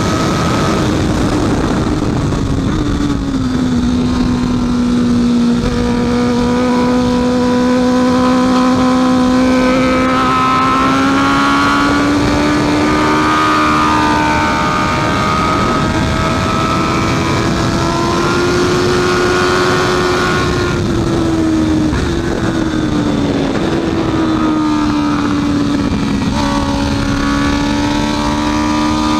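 Honda CB650F's inline-four engine at racing speed, its revs climbing and falling again and again through the gears, over a steady rush of noise.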